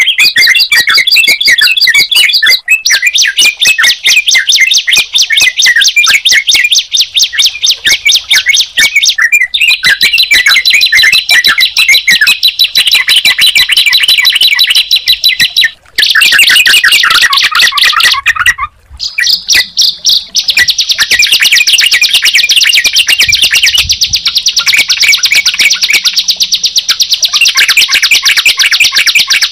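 Recorded songs of a bar-winged prinia (ciblek) and a yellow-vented bulbul (trucukan): loud, fast, high chirps run together in long trills, broken by a few brief pauses.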